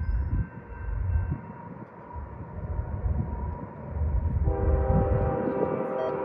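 Freight train running past with a low rumble and wheel knocks. About four and a half seconds in, a locomotive's multi-note air horn starts sounding and holds steady.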